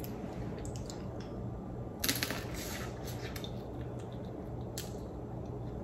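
Faint wet mouth sounds of eating snow crab meat: sucking and chewing, with a brief louder wet noise about two seconds in and a few soft clicks.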